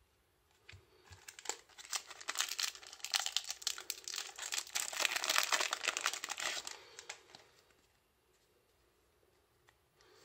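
Foil wrapper of a Yu-Gi-Oh booster pack being crinkled and torn open by hand. A dense crackle starts about a second in, is loudest for several seconds in the middle, and dies away after about seven seconds.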